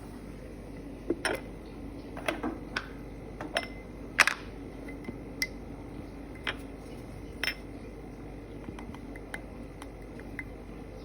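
Kitchen clatter of cookware and utensils: about a dozen separate clinks and knocks at irregular spacing, the loudest about four seconds in and thinning out in the last few seconds, over a steady low hum.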